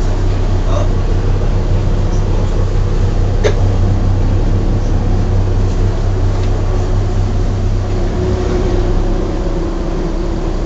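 Pilot boat's engine running steadily under way, heard inside the wheelhouse as a loud low drone with a steady hum.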